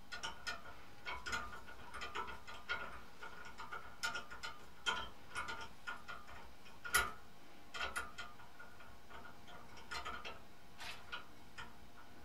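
Light, irregular clicks and ticks of small screws and spacers being handled and threaded by hand onto a CPU mounting plate, with one louder click about seven seconds in.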